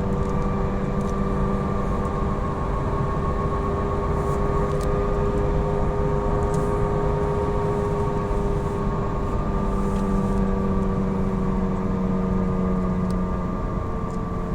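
Falken FK510 tyres droning on the road: a loud, steady hum over a low rumble, with a few held tones that sink slightly in pitch.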